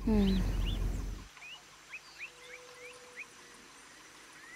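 A low, descending tone that stops abruptly a little over a second in, followed by birds chirping: a run of short, quick calls over quiet outdoor background.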